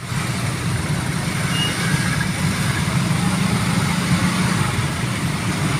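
Motor vehicle engines idling with a steady low sound.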